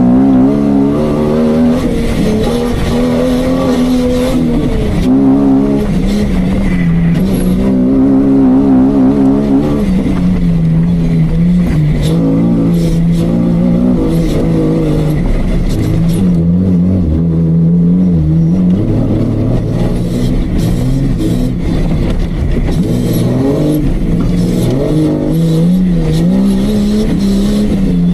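Off-road Jeep's engine running hard under load, its revs repeatedly rising and falling as the driver works the throttle.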